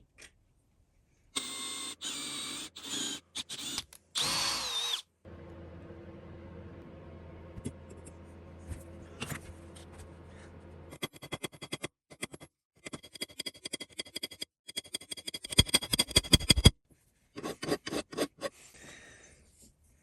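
A power tool running in several short stretches on a metal part: a whine whose pitch wavers, then a quieter steady run, then a stretch of rapid clicking and rattling with a few loud knocks.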